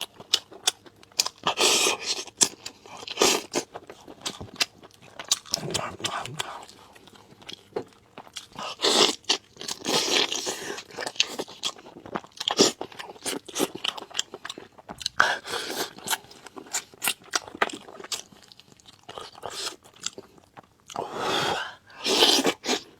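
Close-miked eating: steady crunching and chewing with many sharp clicks, and several longer hissing bursts of about a second each.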